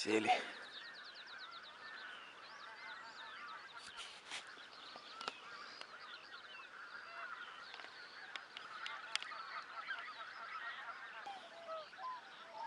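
A large mixed flock of geese and swans calling continuously, a dense chorus of overlapping honks from birds that have just landed on a field. A few brief clicks stand out over the chorus.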